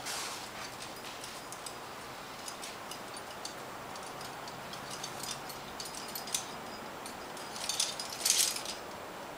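Metal climbing gear clinking in scattered small clicks over a faint steady hiss, with a louder burst of jangling and scraping near the end.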